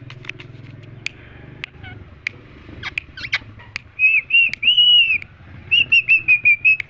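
Parrot giving shrill whistled calls: a few short notes about four seconds in, then a quick run of short chirps near the end. Before the calls there are only scattered sharp clicks.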